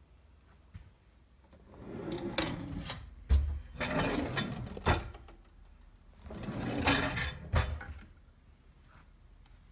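Kitchen drawers sliding on their runners, opened and pushed shut twice, each run ending in sharp knocks as a drawer closes.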